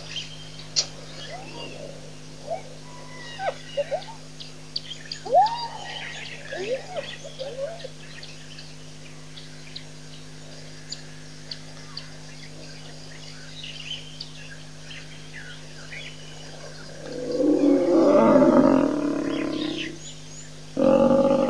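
Spotted hyenas calling in short rising-and-falling whoops over the first eight seconds, with bird chirps, over a steady low hum. About seventeen seconds in comes a loud, drawn-out animal call lasting about three seconds, and another starts just before the end.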